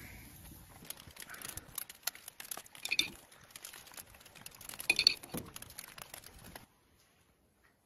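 Beef ribs cooking on a grill: irregular crackling and tapping, with two louder clinks about three and five seconds in. It cuts off suddenly shortly before the end.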